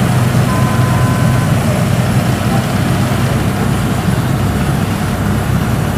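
Kubota DC70 combine harvester's diesel engine running steadily as the machine drives across the rice field. A brief high tone sounds for about a second, half a second in.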